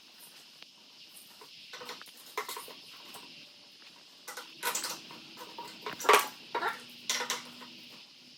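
Metal bike parts and tools clinking and knocking as greased linkage bolts are fitted into a motorcycle's suspension linkage. A few scattered clicks give way to a quicker run of clatters, the loudest about six seconds in, over a faint steady hiss.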